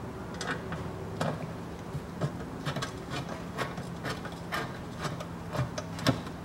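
Irregular metallic clicking of a small hand ratchet as oil-pan bolts are run into the engine block, about two to three clicks a second with a few sharper ones.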